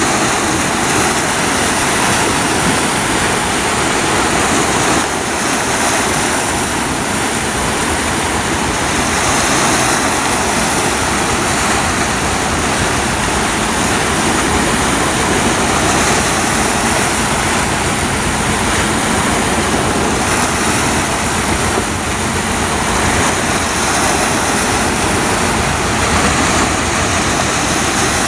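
Small waves washing onto a rocky sand beach, heard as a steady, loud rushing noise with no clear breaks.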